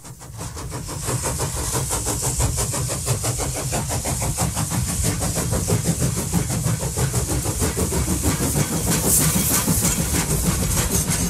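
Train running, fading in over the first second: a steady engine rumble with a fast, even beat and a hiss over it.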